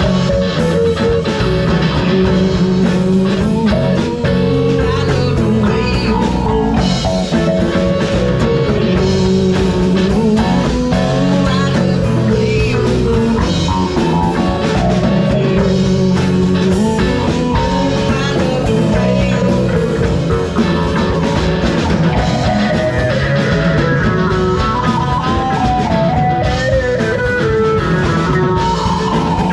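Folk rock band playing a song at a steady loud level, with guitar and drums.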